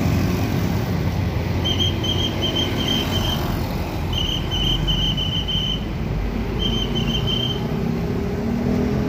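Diesel tour bus engine running at low speed as the bus pulls out, a steady low rumble. Over it, three bursts of a trilled, high-pitched whistle, each about a second or so long, roughly two, four and a half and seven seconds in.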